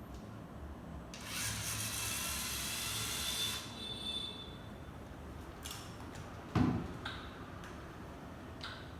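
Lego EV3 car's electric motors and plastic gears whirring with a high whine for about two and a half seconds as the car drives, followed by scattered clicks and one sharp knock about two-thirds of the way through.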